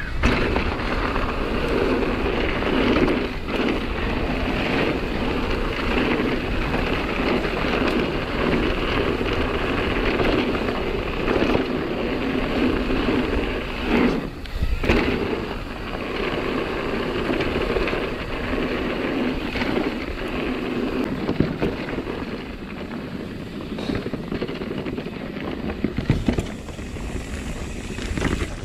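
Nukeproof Megawatt e-mountain bike ridden down a dirt and gravel trail: steady tyre rumble and wind buffeting the camera microphone, with frequent knocks and rattles as the bike goes over bumps, a few of them sharper.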